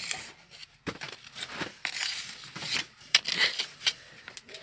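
Handling noise at a flatbread griddle: scraping and rustling with several sharp clicks and knocks, as a wooden stick and the breads are worked on the iron griddle over a wood fire.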